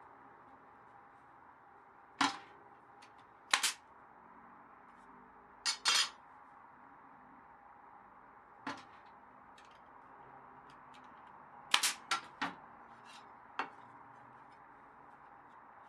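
Nail gun firing into wooden planks: about ten sharp shots at irregular intervals, several in quick runs of two or three.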